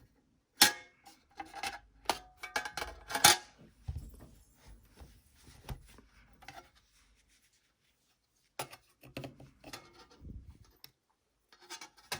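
Hands working on an opened Mac Mini's case and internal parts: a string of sharp clicks and taps with light scraping, the loudest knocks about half a second and three seconds in, then a pause and a few softer clicks near the end.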